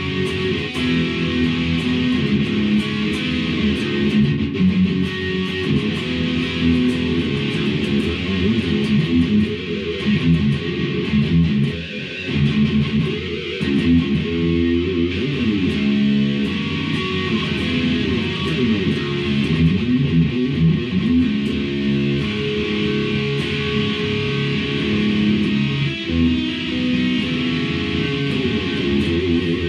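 Electric guitar with its stock EMG active pickups played through an amplifier: riffs and chords with string bends.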